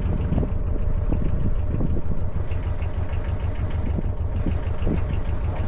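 Narrowboat's inboard engine running steadily at slow cruising speed, a continuous low throb.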